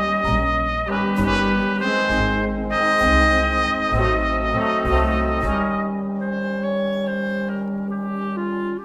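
Background music led by brass instruments: a melody over a pulsing bass line, which gives way to held notes about halfway through.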